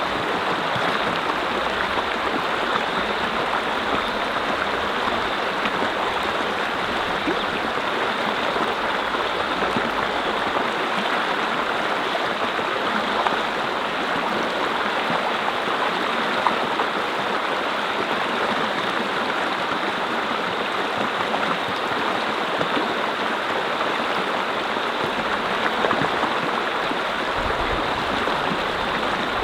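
A mountain brook with water running and splashing steadily over rocks.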